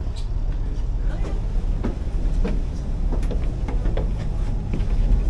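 Steady low rumble of a passenger ferry's engines, with footsteps on the cabin floor and stairs, about three steps every two seconds.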